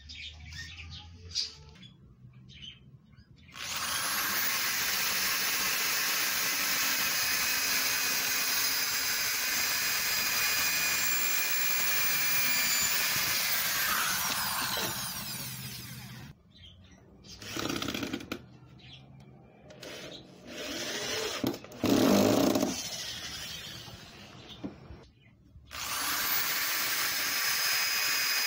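Corded electric drill boring into pallet wood: one long steady run starting a few seconds in, then several short bursts, and another steady run near the end.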